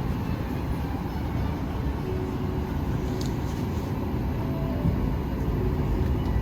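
Steady low rumble of a Boeing 737-800's cabin, the engine and air-system noise of the airliner.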